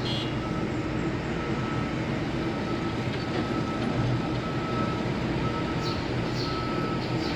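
Heavy construction machine's diesel engine running steadily, with a reversing alarm beeping on and off over it.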